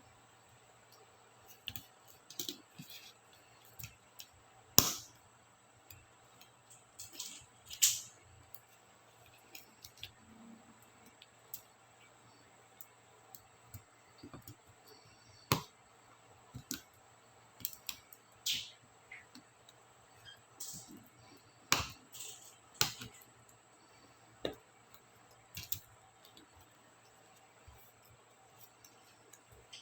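Small plastic clicks and snaps at irregular intervals from laptop keycaps and their clips being worked by hand, the sharpest snaps about five seconds and eight seconds in, and another just after twenty seconds.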